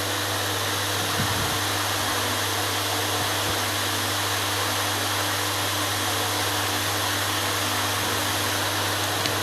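Lathe running steadily: a constant motor hum with a continuous whirring hiss, and a couple of faint knocks.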